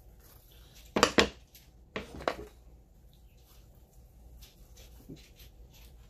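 Sharp clacks of tools knocking on a wooden workbench as scissors are set down: a close pair about a second in and two more about a second later.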